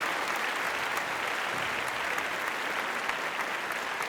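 Crowd applauding, a steady dense patter of many hands clapping that starts abruptly out of silence.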